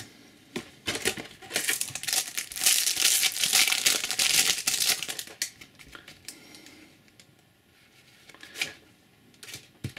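A foil trading-card booster pack being torn open and crinkled for about five seconds, then going quieter as the cards are handled, with a couple of soft clicks near the end.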